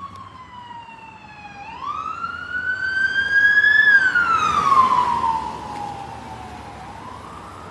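Police car siren wailing in a slow rise and fall of pitch: it falls, climbs to a peak about four seconds in, falls again, and starts rising once more near the end. It grows louder, is loudest about four to five seconds in, then fades.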